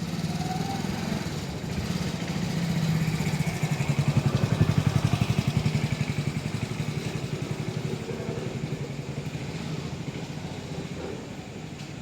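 An engine running with a fast, even pulse, growing louder to a peak about four to five seconds in and then slowly fading, like a motor vehicle passing close by.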